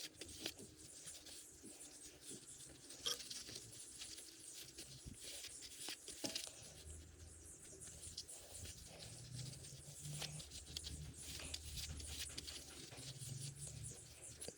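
Faint, scattered light clicks and taps of hand tools and metal parts being handled while a car's front wheel hub is taken apart. A low hum comes in from about seven seconds in.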